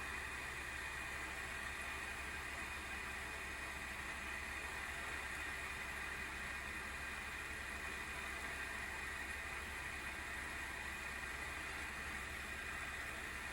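The single cooling fan of an ASUS GeForce RTX 3060 12GB Phoenix graphics card spinning under benchmark load: a steady whir with a bright, hissy edge. The abnormal noise marks a failing fan, which the owner puts down to a wobbling shaft or its oil having run dry.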